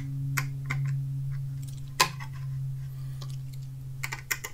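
Light clicks and ticks of a small hand screwdriver snugging M3 pan-head screws into the plastic risers of a 3D-printed electronics box, with the box being handled. One louder click comes about two seconds in and a quick cluster near the end, over a steady low hum.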